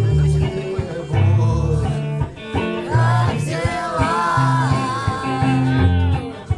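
Live band music: a male voice singing over guitar, bass and drums with a steady beat.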